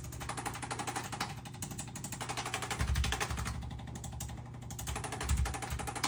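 Rapid, steady mechanical tapping from a motorized percussion device working on the body, with a low hum underneath.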